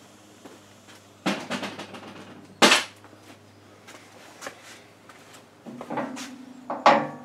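Irregular metallic clanks and knocks of steel parts and tools being handled at a steel tractor loader bucket. The loudest is a sharp strike about two and a half seconds in, and another comes near the end.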